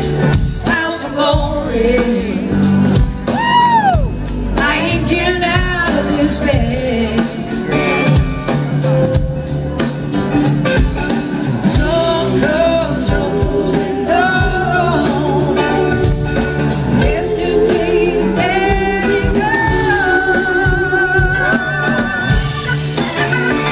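Live blues-rock band playing: a woman singing lead over electric guitars and drums.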